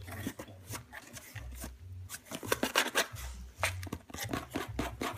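Scottish Fold kitten's claws scratching and scrabbling at a cardboard box in irregular scrapes and clicks, with dull bumps as the box is handled.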